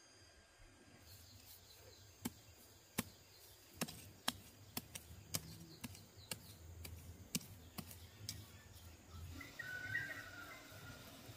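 A machete blade jabbing through dry straw mulch into the soil, making about a dozen sharp, irregular chops. Near the end comes a softer crackle of straw as hands set a seedling into the opened hole.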